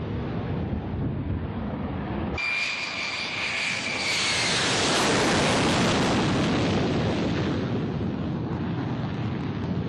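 Boeing X-32A's jet engine: a low, rumbling approach with wind noise, then, after a cut about two seconds in, a close low pass with a high whine that swells into a loud roar. The roar peaks mid-way and slowly fades.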